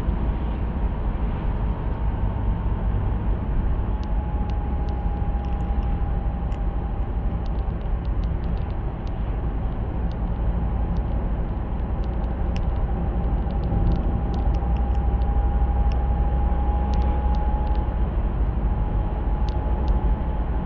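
Cabin noise of a car driving at speed with a TF-80SC six-speed automatic: a steady low road and drivetrain rumble with a faint thin whine that sags slightly in pitch in the first few seconds and then holds steady, plus scattered faint ticks. This is the gearbox/differential hum under investigation, at a point where the owner says it is dying away.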